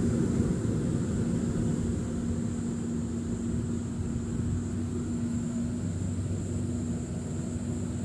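Kukje KC100 six-row rice combine harvester running steadily, a constant engine drone with a thin high whine above it.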